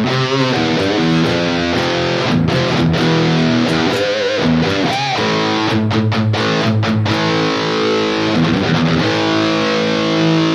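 Distorted electric guitar played through a Fractal Audio Axe-Fx III amp modeler: sustained chords and picked riffs, with a few bent high notes with vibrato about four to five seconds in.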